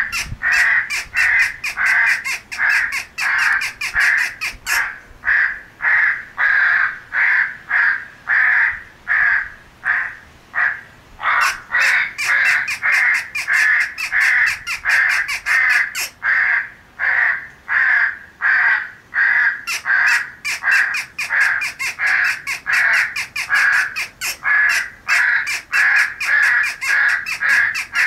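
Crows cawing in a rapid, overlapping run of harsh caws, about two or three a second, with a couple of short pauses: a morning call of crows gathered to feed, as used for an electronic crow caller.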